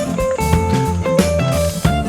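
Background music: guitar with bass and drums keeping a steady beat.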